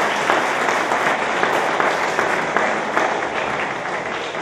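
Audience applauding, a dense patter of many hands clapping that slowly dies away toward the end.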